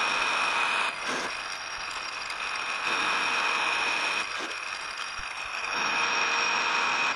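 Precision Matthews 1127 metal lathe running with its three-jaw chuck spinning, a steady high whine under it, while the tool turns a bar down in diameter; the cutting noise swells louder three times.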